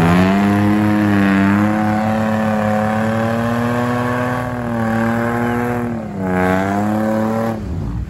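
Off-road vehicle's engine revving hard and held at high revs. The revs sag briefly about six seconds in, pick up again, then drop off just before the end.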